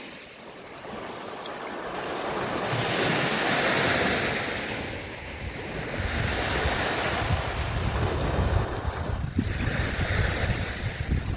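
Sea waves washing onto a shore, swelling and drawing back in slow surges, with a choppy low rumble, like wind on the microphone, from about six seconds in.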